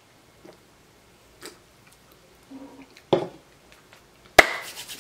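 Drinking from a soda can: soft swallowing clicks, then a louder sudden sound about three seconds in and a sharp knock about a second later.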